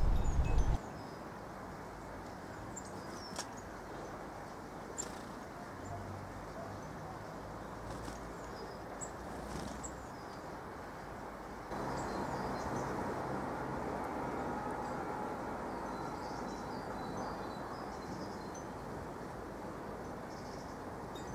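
Garden ambience: a steady background hiss with faint, scattered small-bird chirps and a few light ticks; the background gets louder about twelve seconds in.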